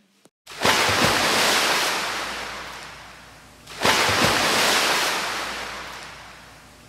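Two waves breaking one after the other. Each is a sudden rush of surf that slowly fades away over about three seconds.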